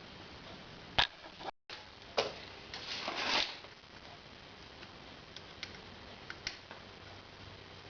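Tools and parts being handled in a workshop: a sharp click about a second in, another shortly after, then a brief scraping rustle and a few faint ticks.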